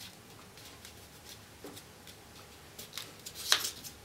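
A sheet of paper being folded and creased by hand: faint rustling, with two sharper crackles of the paper near the end.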